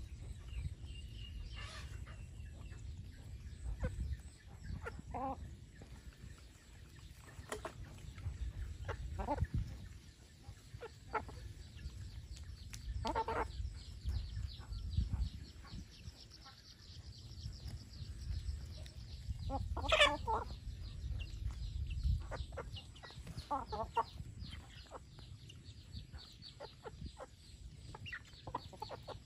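Chickens clucking now and then as they forage, in short separate calls, the loudest about twenty seconds in, over a low steady background noise.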